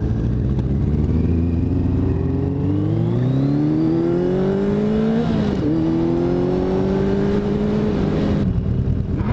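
1985 Yamaha XJ700's inline-four engine pulling under way: its pitch climbs steadily, dips sharply at a gear change about five and a half seconds in, climbs again, then falls as the throttle eases near the end.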